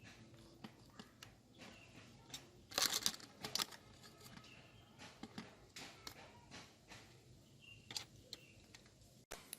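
Light clicks and taps of small parts and hand tools being handled on a small metal toy car, with a short burst of louder scraping clicks about three seconds in.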